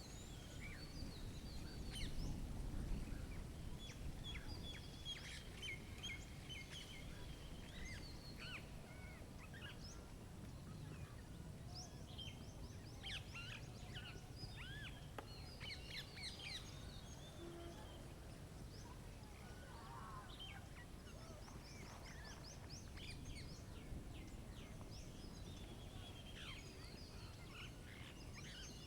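Several small birds chirping and singing, with quick repeated trills, over a steady low background rumble.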